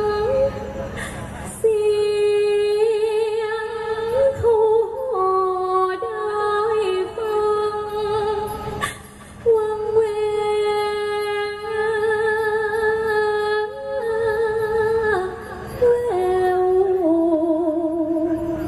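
Thai likay singing: one amplified voice singing unaccompanied into a microphone, holding long notes with wide vibrato and sliding between pitches. Two or three sharp clicks cut across it, one near the start and one about halfway.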